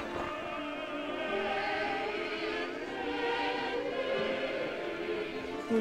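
A choir singing, several voices holding long, overlapping notes that change slowly.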